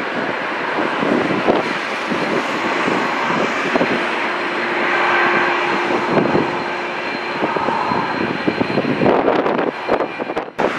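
Airbus A330-300 jet engines running steadily at low taxi thrust: an even roar with a thin high whine. About nine seconds in, wind starts buffeting the microphone.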